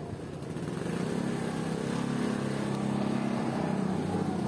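Small motorcycle engine running at low speed as it rolls slowly forward. A steady engine hum grows louder about a second in and holds.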